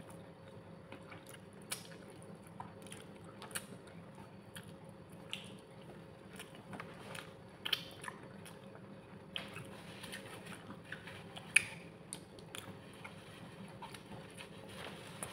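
Close-miked eating: chewing, biting and wet mouth clicks from someone eating grilled chicken and rice by hand, in scattered short sharp bursts, the loudest a little past halfway. A faint steady hum runs underneath.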